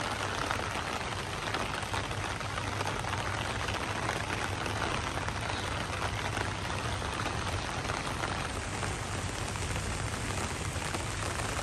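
Steady rain falling on rooftops and streets, an even hiss without a break.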